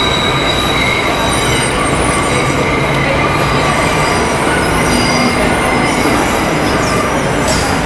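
New York City subway train running, heard from inside the car: a constant loud rumble of the train on the rails with high, steady wheel-squeal tones over it.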